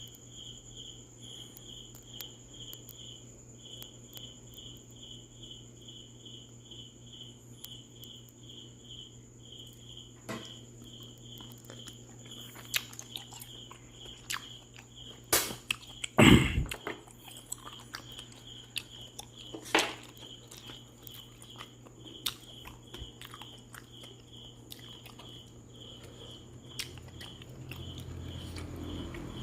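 Someone eating shellfish (spider conch): chewing and a few sharp clicks of shell, the loudest near the middle. Behind it a steady high chirp repeats about two to three times a second over a low hum.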